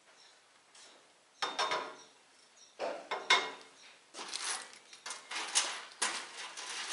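Small metal parts clinking and clattering as loose bolts, nuts and steel cart pieces are handled. Irregular jangling that starts about a second and a half in and grows busier toward the end.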